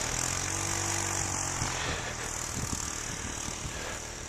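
A motor engine running steadily, its pitch rising slightly and then easing back in the first couple of seconds, with a steady high hiss above it.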